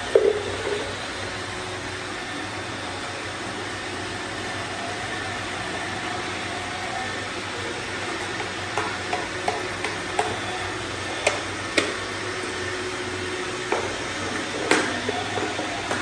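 Several Roomba robot vacuums running together on a tile floor: a steady whirring of motors and brushes. Sharp clicks and knocks come now and then in the second half.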